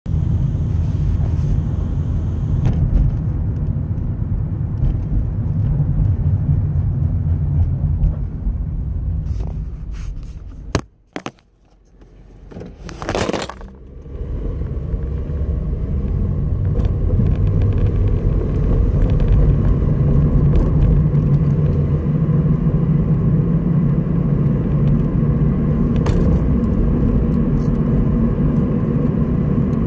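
2011 Honda Civic running with a steady low hum, the unexplained humming noise the owner wants diagnosed. About 11 s in it drops away briefly after a click, with a short loud rushing burst near 13 s, then the hum comes back.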